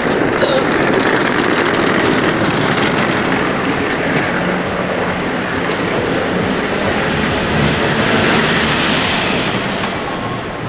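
Loud, steady vehicle noise that swells in the middle and eases off near the end.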